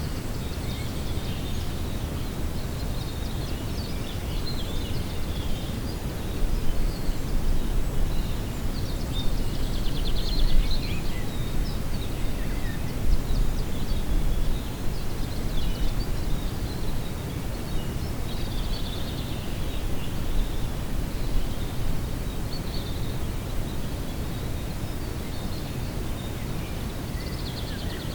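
Lakeside ambience: small birds chirping and trilling at intervals over a steady low rumble of wind, which gusts louder through the middle.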